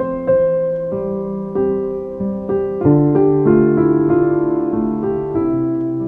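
Background piano music: slow, gentle notes and chords, each struck and left to ring and fade before the next.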